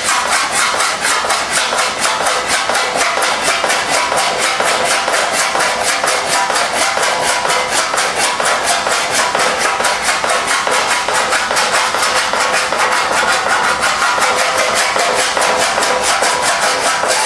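Hand file scraping across a TIG weld on a sheet-metal fender in rapid, even strokes. It is skimming the high spots of the Sharpie-marked weld so the marker left behind shows the low spots.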